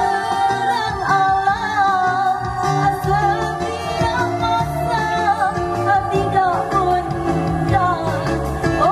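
A woman singing a song into a microphone, amplified through a PA, over instrumental accompaniment.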